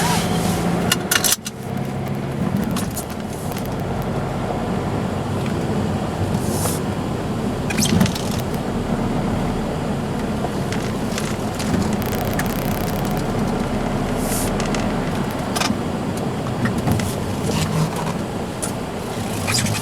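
BMW E60 520d with its four-cylinder diesel being driven: steady engine and road noise, with scattered light clicks and rattles.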